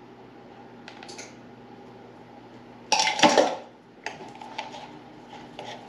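Plastic measuring spoons and a small salt jar handled while salt is measured out: light clicks, then one louder clatter and rattle lasting about half a second about three seconds in, with smaller clicks after.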